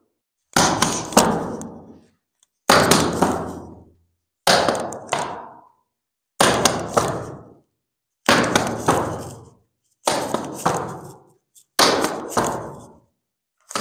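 Strikes landing on hand-held focus pads in quick combinations: seven flurries of two or three sharp slaps each, about one flurry every two seconds.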